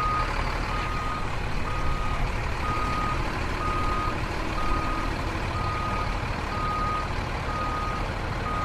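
A car driving, its road and engine noise steady, with a short electronic beep repeating about once a second like a reversing alarm.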